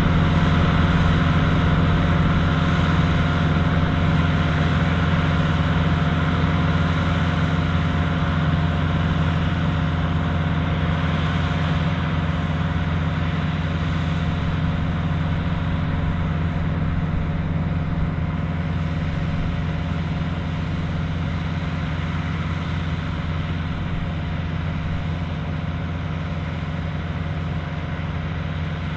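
Dronningborg D900 combine harvester running at work in the field: a steady engine drone with a constant higher whine, slowly growing fainter.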